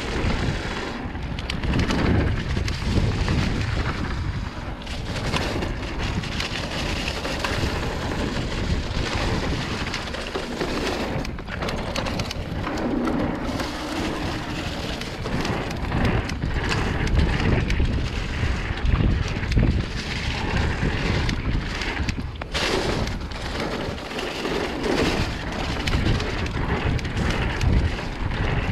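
Mountain bike riding down a leaf-covered dirt trail: tyres rolling over dirt and dry leaves under a heavy rumble of wind buffeting the microphone, rising and falling with the terrain.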